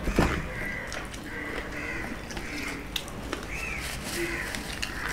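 Short bird calls repeating about once a second, each note rising and falling, with a few light clicks of eating from steel plates.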